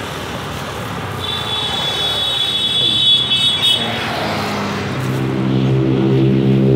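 Road traffic running past on a highway. About a second in, a high tone holds for nearly three seconds. From about five seconds in, a steady low pitched drone comes in.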